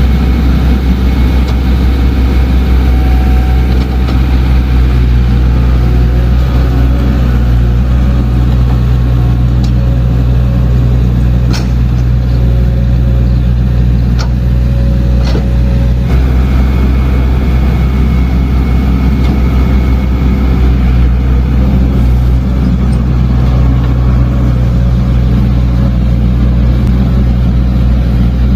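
Diesel engine of a heavy earthmoving machine running steadily and loud. A few sharp knocks come around the middle.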